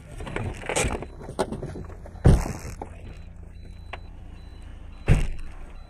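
Several knocks and thumps around a stopped car, the loudest about two seconds in and another near the end, over a low steady hum. A faint high beep repeats in the second half.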